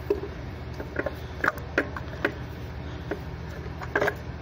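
Irregular light clicks and taps of metal tools and parts being handled on a diesel engine's exposed timing gear train as the injection pump gear is set on its timing marks, over a steady low hum.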